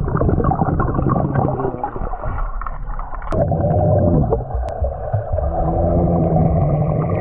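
Muffled underwater sound picked up by a camera submerged in a swimming pool: gurgling and bubbling as swimmers kick and dive through the water.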